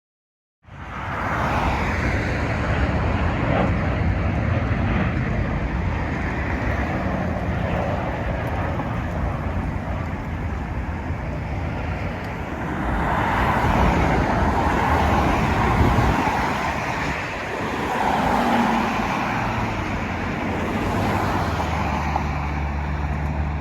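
Strong wind rumbling on the microphone over the noise of aircraft at the airport. It starts suddenly about half a second in and swells twice in the middle.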